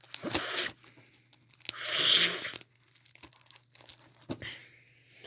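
Plastic shrink wrap on a Blu-ray case being torn and crinkled by hand: two rustling tears, one at the start and one about two seconds in, with small clicks and crackles of plastic between.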